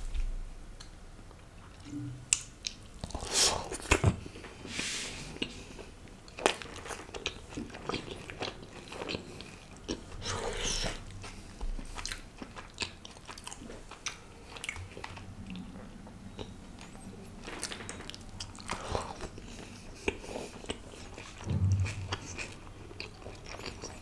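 Close-miked eating sounds: a man chewing meat with his mouth, with wet smacks and short clicks at irregular moments, and food torn by hand.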